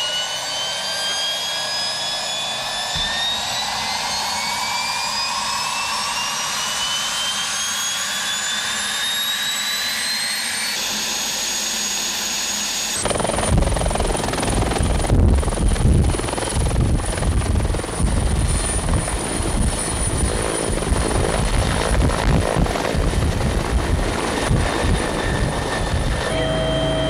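Bell 412 military helicopter starting up: the turbine winds up with a steadily rising whine for about the first ten seconds. Then, about thirteen seconds in, a loud, pulsing rotor chop and rush of air take over as it lifts off and flies.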